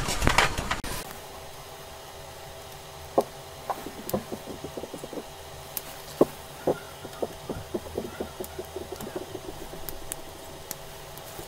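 Metal tweezers handling the small parts and metal back plate of an iPhone SE 2020 display assembly: a few handling knocks in the first second, then a scattered string of light, sharp clicks and taps from about three seconds in.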